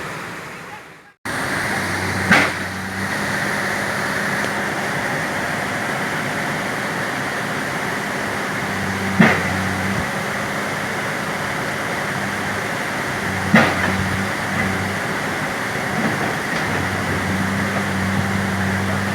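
Backhoe diesel engine running steadily, with three sharp knocks spread through it. The sound drops out briefly about a second in, then resumes.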